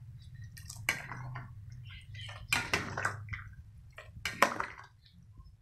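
Spoon stirring a pot of simmering vegetable soup: several short scrapes and clinks against the pot with wet sloshing of the vegetables, over a steady low hum.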